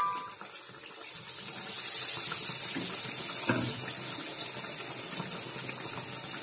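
Batter-coated bread pakoras sizzling as they deep-fry in hot oil in an aluminium kadhai, a steady hiss that thickens about a second and a half in. A brief knock comes about halfway through.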